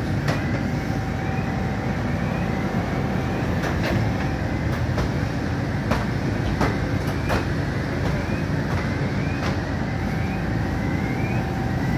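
Fire engine running steadily with a dense low rumble. Over it come a faint chirp rising in pitch about once a second and scattered sharp clicks and knocks.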